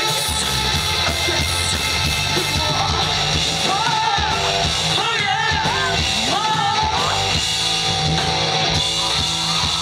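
Live rock band playing loudly: distorted electric guitars and a drum kit under a female lead singer, who holds several wavering sung notes in the middle.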